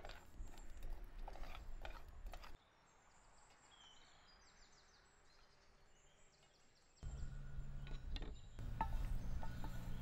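Coriander seeds toasting in a steel pan over a wood fire, stirred with a wooden spatula: clicks and scrapes over a low rumble. This cuts off suddenly about two and a half seconds in to faint bird chirps. From about seven seconds in, a low steady hum with scattered clicks sets in.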